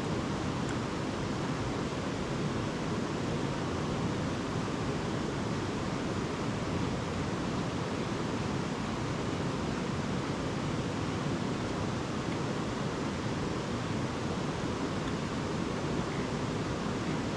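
A river rushing steadily, an even wash of flowing water with no breaks.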